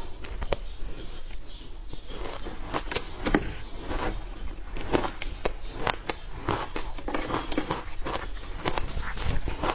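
Ice being bitten and crunched between the teeth, with a rapid run of sharp cracking crunches.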